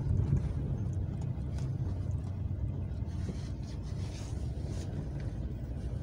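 Steady low rumble of a Dacia Sandero Stepway's engine and tyres, heard from inside the cabin as the car drives slowly over snow.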